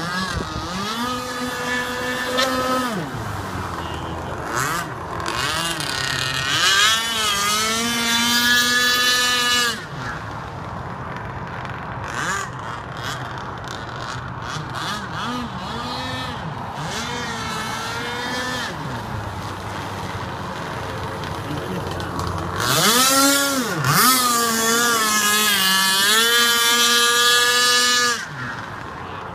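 Radio-controlled speedboat's 26cc two-stroke petrol engine running on the water, its pitch wavering up and down as it is throttled and the boat moves about. It is opened up into three high-revving runs, the last and longest near the end, each dropping off sharply when the throttle is closed.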